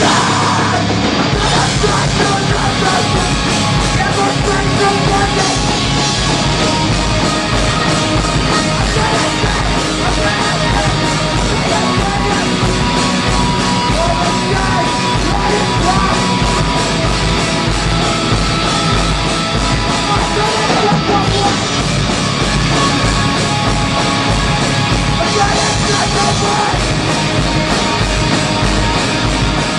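Hardcore band playing live: loud, dense distorted guitars and drums without a break.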